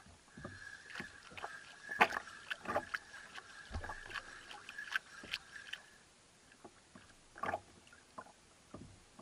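Spinning reel on a jigging rod whirring with a steady high tone for about six seconds, among scattered sharp knocks and taps.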